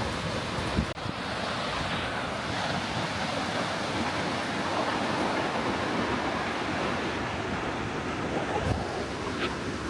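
Waterfall's falling water making a steady rushing noise, mixed with wind buffeting the microphone.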